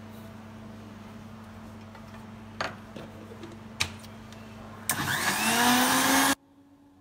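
Electric blender blending a milk and popcorn mixture: the motor starts about five seconds in, its pitch rising as it speeds up, and cuts off abruptly about a second and a half later. Before it, a steady low hum with two short knocks.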